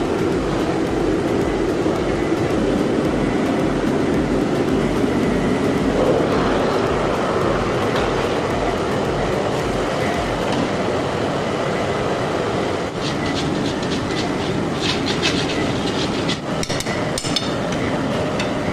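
Loud, steady mechanical noise, like a blower burner or motor running, with a pulsing low rumble. In the last few seconds sharp metal ticks and scrapes join it, as a metal vessel and tool knock and scrape on steel.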